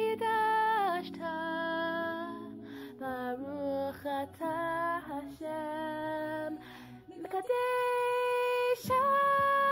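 A woman singing a melody in long held notes, phrase by phrase, with short breaks between the phrases.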